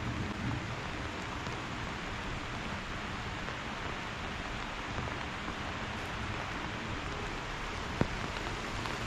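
Steady rain pouring down, an even hiss, with a single click about eight seconds in.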